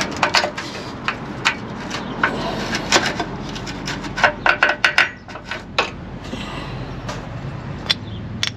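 Hand tools and metal parts clinking and knocking during front suspension work: a scattered, irregular run of sharp metallic clicks, thickest about four to five seconds in, over steady background noise.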